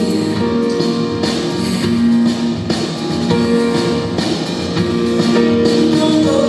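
Live band music in an instrumental passage with no singing: guitar over a drum kit.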